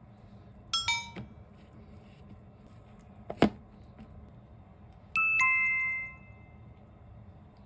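Edited-in chime sound effects: a quick sparkling flourish of falling bell tones about a second in, then a sharp click, then a two-note descending "ding-dong" chime that rings for about a second.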